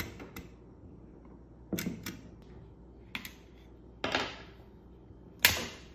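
Scattered sharp clicks and knocks of a metal punch and tongue-and-groove pliers working the base plate of a polymer Glock extended magazine against a wooden table. There is a short scrape about four seconds in and the loudest knock near the end.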